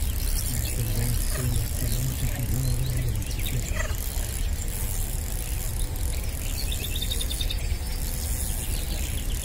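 Spinning reel being cranked, with a quick run of high clicks about seven seconds in, over a steady low rumble of wind on the microphone. The reel is audible enough that the angler remarks on its sound and says it needs oil.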